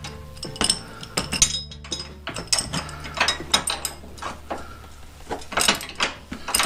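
Hand socket ratchet clicking in quick runs as a bracket bolt is run in and snugged through the truck's tow-hook opening.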